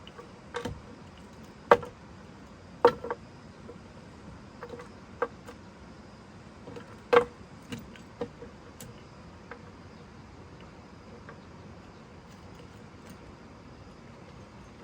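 A few sharp, irregular knocks or taps, loudest about two, three and seven seconds in and dying away after nine seconds, over a faint steady insect drone.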